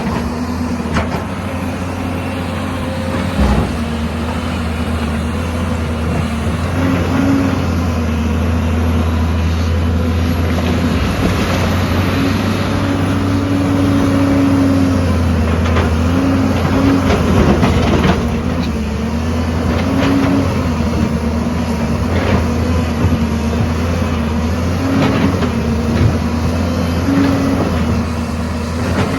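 Excavator's diesel engine running steadily, its pitch stepping up briefly several times as it works, with occasional knocks and clanks.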